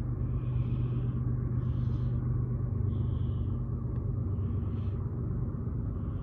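Low, steady rumble of an approaching Union Pacific intermodal freight train. Faint short higher sounds recur roughly once a second over it.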